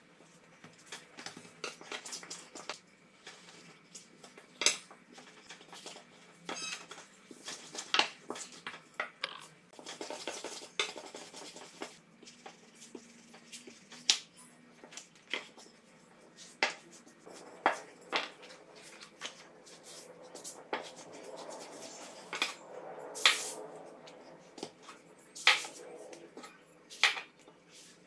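Wooden rolling pin working dough thin on a floured silicone baking mat: soft rolling and handling noise broken by irregular sharp knocks and clicks of the pin against the work surface.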